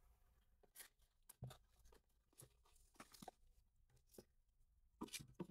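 Near silence, broken by faint scattered clicks and light rustles of small plastic parts and packaging being handled, a little busier near the end.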